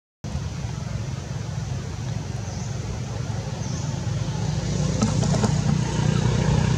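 Steady low outdoor background rumble, growing a little louder about five seconds in.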